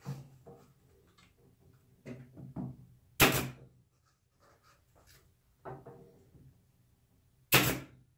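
Pin nailer firing twice, about four seconds apart, sharp loud shots driving pins into the glued joints of a wooden tray. Lighter knocks of the tray and nailer being handled come in between.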